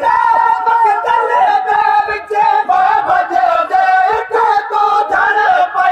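A crowd of men chanting a noha, a Shia lament, in unison behind a lead reciter, with no instruments. Low thuds of hand-on-chest matam beat under the voices.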